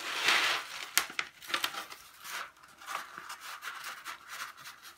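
A rolled paper funnel rustling and crinkling as it is handled, with a loud rustle near the start and then scattered light clicks of small plastic aroma beads moving inside it.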